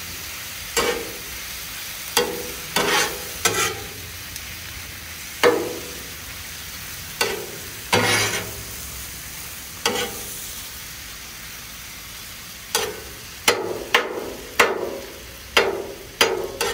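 Metal spatula scraping and turning liver and onions on a steel flat-top griddle over a steady sizzle. Each stroke is a sharp scrape with a short metallic ring. The strokes come every second or two, pause briefly past the middle, then come in a quicker run near the end.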